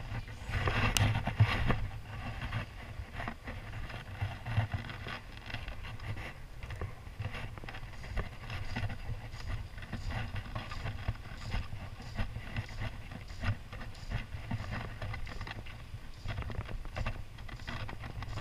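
Wind rumbling on an action camera's microphone, with small clicks and rustles from hands working a fly rod and stripping fly line; a sharper click stands out about a second in.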